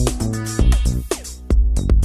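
Electronic background music with a drum-machine beat and heavy bass, a pattern repeating about every two seconds.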